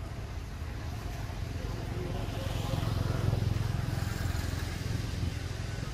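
A motor vehicle's low engine rumble. It swells about three seconds in and then eases off, like a vehicle passing.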